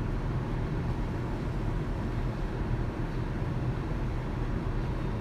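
Steady low rumble of background noise, even throughout, with no distinct knocks, squelches or voices.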